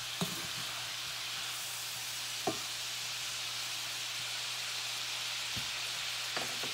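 Pork pieces sizzling in a hot cast-iron skillet, a steady frying hiss, with a few short knocks of a wooden spoon against the pan as the meat is stirred.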